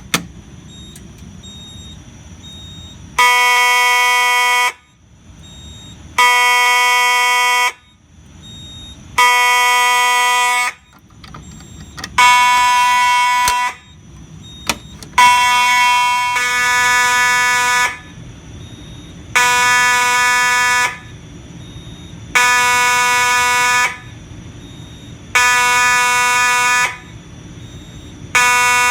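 Simplex 2901-9838 fire alarm horn sounding in slow march-time code at 20 beats per minute: a buzzing blast about every three seconds, each around one and a half seconds long, starting about three seconds in. A single sharp click comes right at the start.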